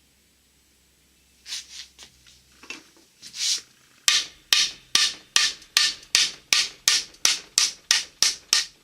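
Hammer blows driving a bearing out of a Borg-Warner T-10 four-speed transmission instead of pressing it out. First come a few scattered strikes, then a steady run of about a dozen, roughly two and a half a second, each with a short metallic ring.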